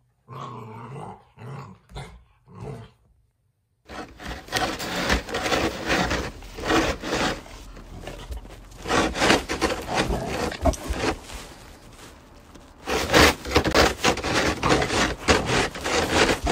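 A Great Pyrenees puppy growling in a short series of play growls. After a break, a snow shovel scrapes and crunches over packed snow and ice in close, rapid strokes, louder near the end.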